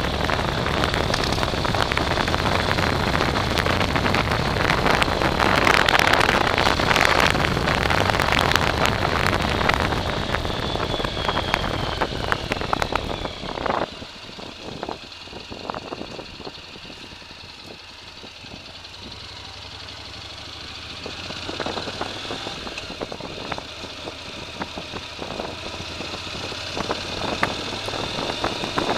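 Off-road vehicle's motor running hard with a high whine and rough noise, easing off sharply about 14 seconds in to a quieter run with scattered knocks, then picking up again toward the end.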